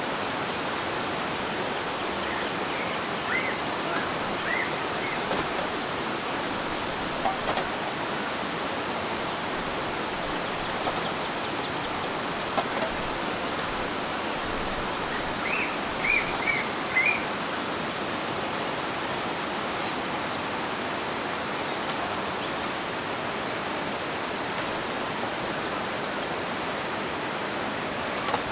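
A mountain valley stream rushing high with rainy-season water, a steady, even noise throughout. A few short high chirps sound over it, in a cluster about three to five seconds in and another about fifteen to seventeen seconds in.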